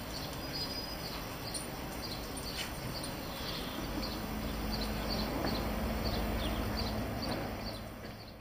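Garden ambience: small birds chirping in short, repeated calls over a steady background hiss, with a low hum joining about halfway through; the sound fades out at the end.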